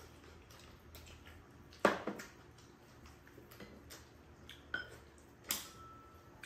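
Spoons and chopsticks clinking against bowls while eating, a few sharp clinks, the loudest about two seconds in and another near the end that rings on briefly.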